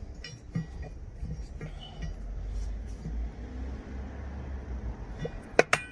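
Steel stopcock key turning an outside stop tap to shut off the water supply: faint metal scrapes, then two sharp metallic clinks near the end.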